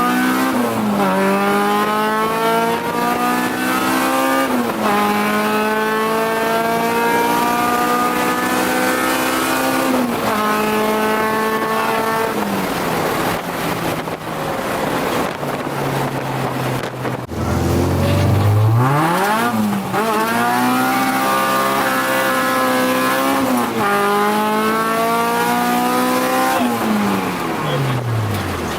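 Honda K24 four-cylinder engine in a swapped Acura Integra accelerating hard through the gears: the pitch climbs in each gear and drops sharply at each upshift, three times in the first ten seconds. After a stretch at a lower steady pitch it pulls through the gears again, and it slows with a falling pitch near the end.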